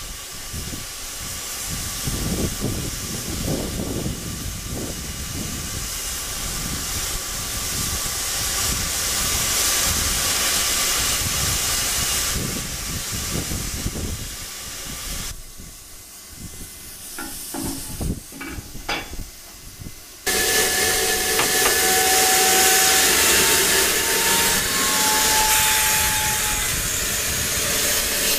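Steam hissing from Ffestiniog Railway steam locomotive No. 190 as it stands taking water. The hiss drops away for a few seconds with a few knocks, then comes back suddenly louder about twenty seconds in.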